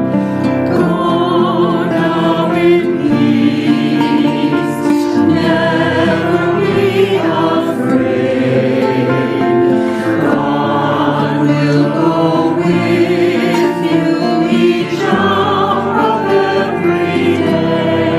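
Choir singing a closing benediction hymn.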